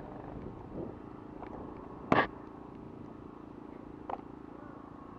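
An engine idling steadily in the background, with one sharp knock about two seconds in and a lighter click near four seconds.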